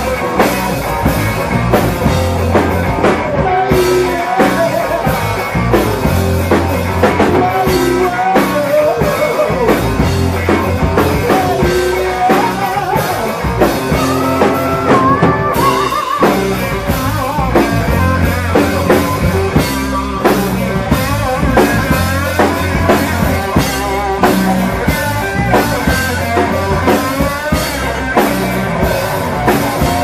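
Live rock band playing loudly, with drum kit and electric guitar carrying the song.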